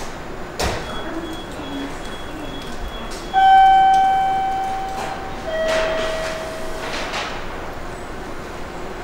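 Two-note descending electronic station chime: a high ringing note fading away over about two seconds, then a lower note. A sharp click comes a few seconds before the chime.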